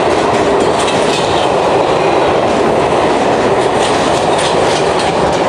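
Freight train of covered paper-transport wagons rolling past at speed: a steady, loud rumble of steel wheels on rail, with scattered clicks and rattles.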